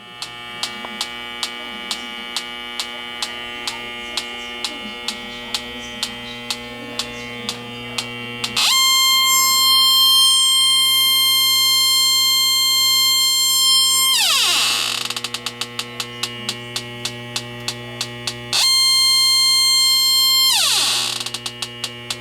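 Electronic refrigerant leak detector ticking about twice a second, then twice breaking into a loud, steady high-pitched alarm tone that glides down into fast ticking: the detector is sensing leaking R-410A refrigerant. A steady hum runs underneath.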